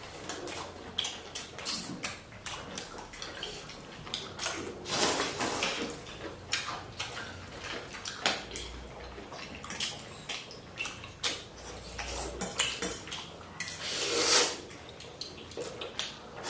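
Eating noodle soup: slurping noodles and broth, with repeated clinks of utensils against bowls. There are two longer slurps, about five seconds in and again near the end.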